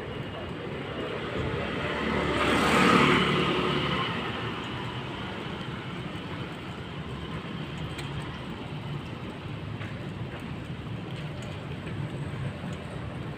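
Street traffic noise: a vehicle passes close about three seconds in, its sound swelling and fading over a steady low rumble of road and wind.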